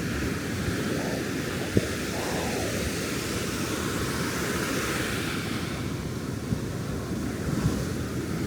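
Ocean surf breaking and washing up the beach in a steady wash of noise, with wind on the microphone. A single sharp click about two seconds in.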